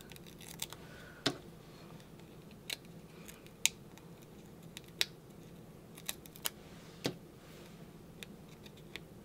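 Light, irregular clicks and taps, about ten over the span, from hands handling paper and foam adhesive squares on a craft desk.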